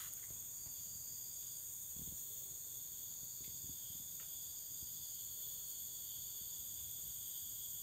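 A chorus of insects, crickets or similar, trilling steadily at several high pitches at once, without a break.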